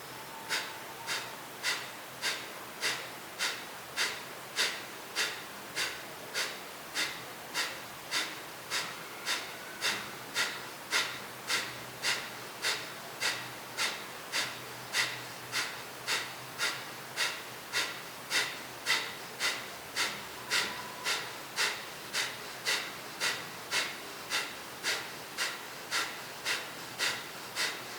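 Kapalbhati pranayama: a steady run of about fifty sharp, forceful exhales through the nose, a little under two a second, each a short puff of air with no audible inhale between them.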